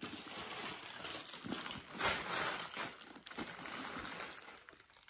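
Clear plastic protective wrap on new handbag handles crinkling and rustling as the bags are handled and lifted, loudest about two seconds in and fading out near the end.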